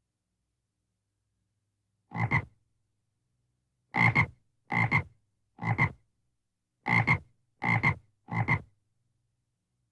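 A frog croaking seven times: one croak, a pause, then two quick runs of three. Each croak is a short, coarse double note.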